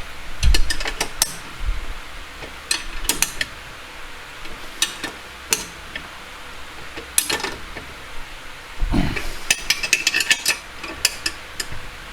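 Irregular metallic clicks and clanks of a spanner and tools working on a car's rear brake caliper bolts, in scattered clusters with a busier run of clinks near the end.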